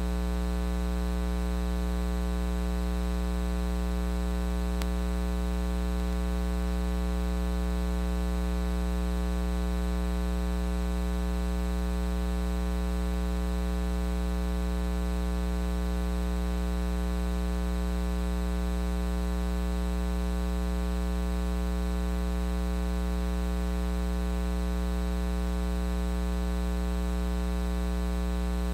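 Steady electrical mains hum: a low buzz with a long ladder of overtones, unchanging throughout, with no speech audible over it.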